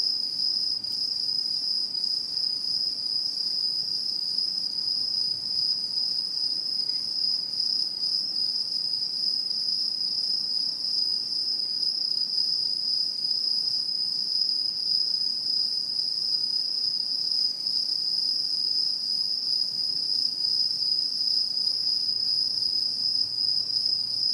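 Autumn insects trilling steadily at one high pitch, without a break.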